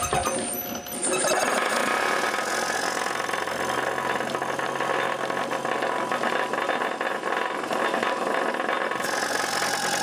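York piston compressor, belt-driven by an electric motor on a variable frequency drive, running steadily with a fast rattling pulse. The sound dips briefly about a second in, then settles back to a steady run.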